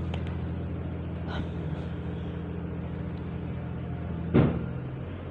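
Steady low mechanical drone from running machinery, with a single loud sharp knock about four seconds in, after which the drone drops slightly.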